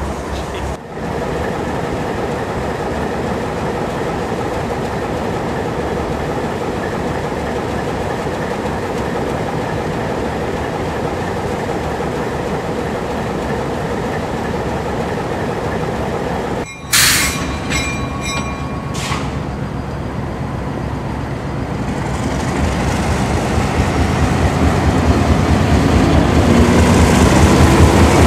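Alco diesel locomotives on the move: a steady low rumble of diesel engines with the wheels rolling over the rails. About seventeen seconds in, a brief high metallic squeal rings out. Over the last several seconds a locomotive engine gets steadily louder.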